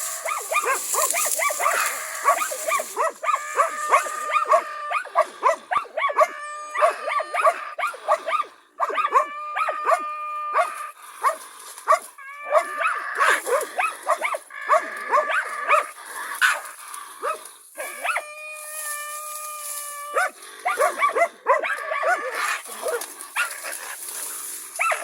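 Karelo-Finnish Laika hunting dogs barking fast and without a break at a raccoon dog they are working, with several drawn-out howling notes held for a second or two among the barks.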